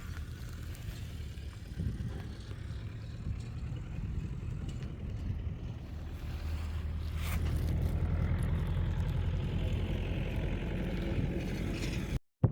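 A boat's motor running steadily with a low hum, growing louder about halfway through, then cutting off abruptly near the end.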